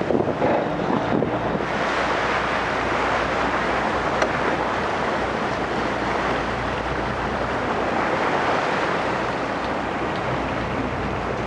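Wind on the microphone and rushing water from a Cabo 45 Express sportfishing boat underway, over a steady low engine drone.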